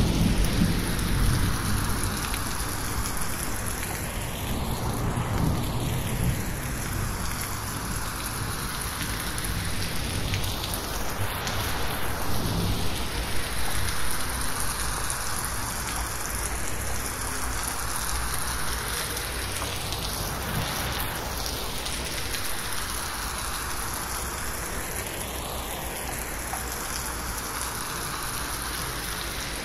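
Heavy rain falling steadily on a corrugated metal roof, with a low thunder rumble fading away over the first few seconds. The sound is processed with 8D panning, so it slowly sweeps around the head.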